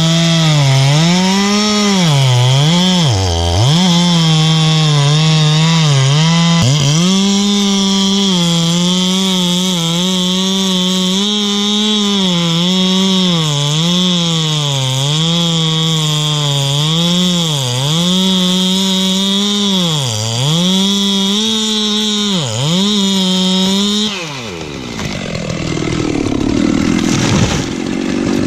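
Modified Makita/Dolmar 7900 79cc chainsaw cutting through very hard, dense red gum eucalyptus at full throttle, its pitch repeatedly sagging under load and picking back up. About 24 seconds in the throttle is let off and the engine pitch falls away, and near the end the felled tree crashes to the ground.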